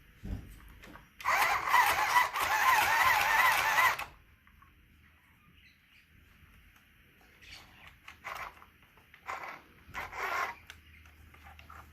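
Small electric sewing machine running under the foot pedal for about three seconds, a wavering whine over a steady rattle, then stopping suddenly; a few short sounds follow near the end.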